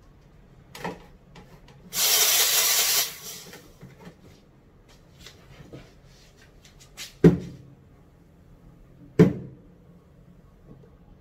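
A short, loud burst of hissing steam lasting about a second from the Nuovo Simonelli Oscar's steam wand, a purge of the wand after steaming milk. A few seconds later come two sharp knocks about two seconds apart.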